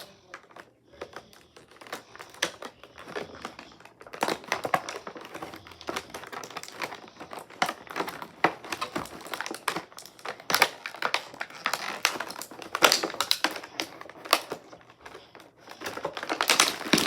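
Plastic toy packaging crinkling, with many irregular sharp clicks and snaps as a figure is worked loose from it. Sparse for the first few seconds, then busy and continuous.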